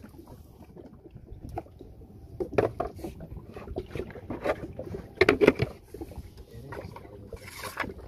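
Water lapping and slapping against the hull of a small wooden boat, with a steady low rumble of wind on the microphone; a few louder slaps come about two and a half and five seconds in.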